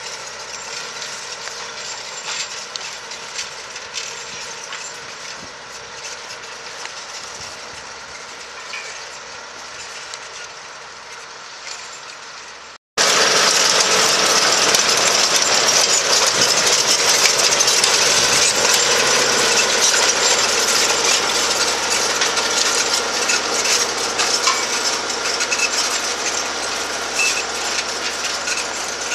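Tractor engine running steadily under load while pulling a seven-body cohecho plough through the soil, with the implement rattling. About thirteen seconds in the sound cuts out for an instant and returns louder, with a steady hiss as the tines drag through earth and stubble close by.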